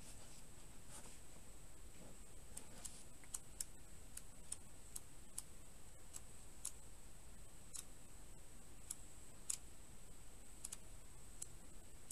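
Pages of a paper manual being leafed through and handled: faint, irregular soft ticks and rustles, a few a second. A thin steady high whine runs underneath.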